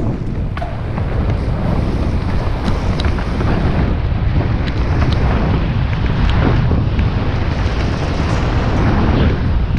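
Mountain bike riding downhill on a rough dirt trail: wind buffeting the microphone over a steady low tyre rumble, with scattered sharp clicks and rattles from the bike.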